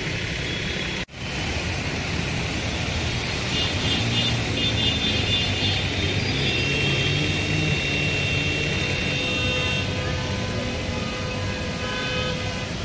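Street traffic on a waterlogged road, with car horns held for several seconds in the middle over a steady rushing noise. The sound cuts out for an instant about a second in.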